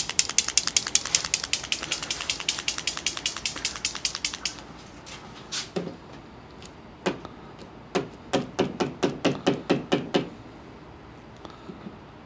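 White paint marker being shaken, its mixing ball rattling in quick even clicks. There are two spells: a fast run of about four seconds, then a slower, heavier one about seven seconds in. The shaking mixes the paint before the pen is used.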